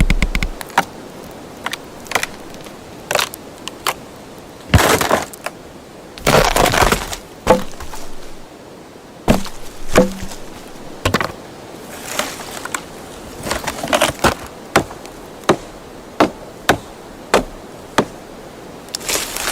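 Wood cracking and snapping sound effects: a string of separate sharp cracks and snaps, more than a dozen in all. Two longer splintering, breaking crunches come about five seconds in and again from about six to seven seconds in.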